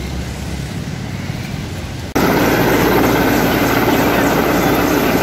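A low rumble, then, about two seconds in, the loud, steady noise of an Mi-17 military helicopter flying overhead starts abruptly.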